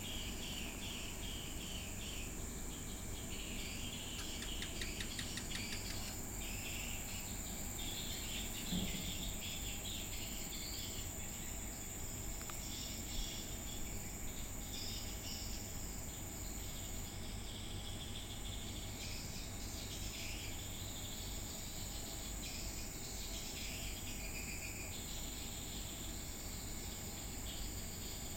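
Outdoor ambience of insects trilling steadily at a high pitch, with scattered irregular chirping throughout.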